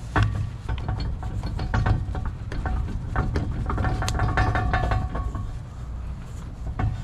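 Bronze propeller hub scraping and clicking on the steel shaft taper as it is twisted back and forth by hand, lapping the fit of the propeller to the shaft. There is a short squeak about four seconds in.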